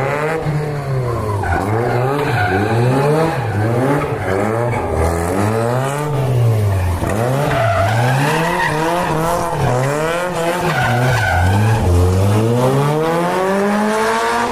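A car engine revved hard again and again, its deep note rising and falling about once every second or so.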